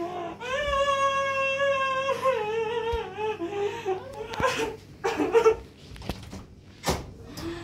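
A small child crying in long, high wails that waver and fall away after about three seconds. A few knocks follow, then a sharp click of a door latch near the end.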